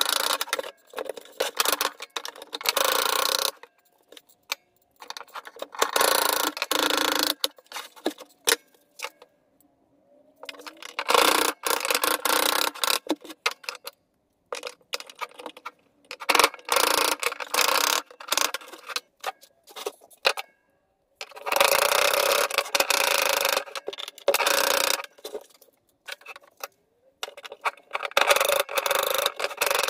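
Intermittent rustling and clattering of materials being handled, in stretches of one to three seconds with short quiet gaps, dotted with sharp clicks.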